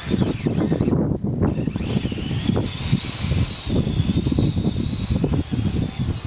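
Radio-controlled Blizzard SR snowcat driven by two brushless motors: a thin high motor whine comes in about two seconds in and holds steady for around three seconds, over a constant rough low rumble.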